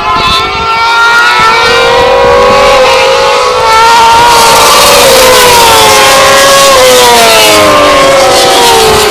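Superbike motorcycle engines at high revs, several engine notes at once; the pitch climbs over the first few seconds, then falls steadily through the second half.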